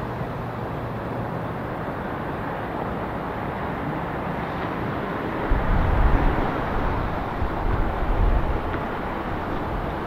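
Jet airliner on approach: a steady rush of engine noise, with wind buffeting the microphone in low gusts from about halfway through.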